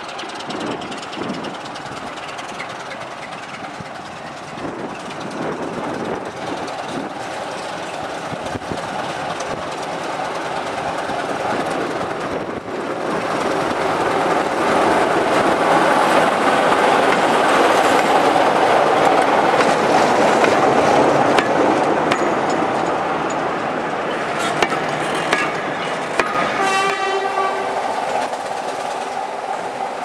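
A Sulzer Type 2 diesel locomotive approaches and passes hauling coaches. The engine and the rumble grow louder to a peak as the coaches go by, with wheels clicking over the rail joints. A horn sounds briefly near the end.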